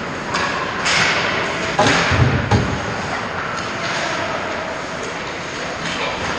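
Ice hockey play close to the goal: skate blades scraping and hissing on the ice in several short bursts, with sharp stick-and-puck clacks and a heavy thud about two seconds in, over steady rink noise.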